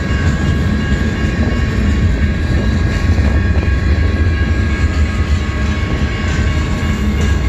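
Freight cars of a mixed freight train rolling past a grade crossing: a steady, loud low rumble of steel wheels on the rails, with thin steady high ringing tones running over it.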